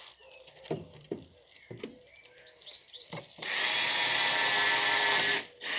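Power screwdriver driving a screw into wood, running loud and steady for about two seconds from roughly three and a half seconds in, then stopping abruptly. A few light knocks of handling come before it.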